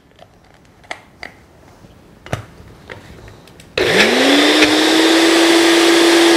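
A few faint clicks, then about four seconds in a countertop blender's motor starts, its whine rising quickly to a steady pitch as it purées a thick avocado sauce.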